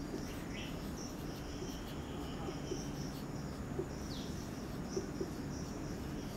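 Marker pen writing on a whiteboard: faint squeaks and light taps from the pen strokes over a steady room hiss. A faint high chirping runs through the background.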